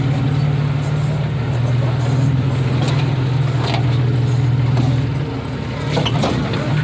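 A 2001 Jeep Cherokee XJ crawling over a rocky dirt trail: a steady low engine drone under tyre and road noise. A few short knocks or crunches come around three seconds and again around six seconds in.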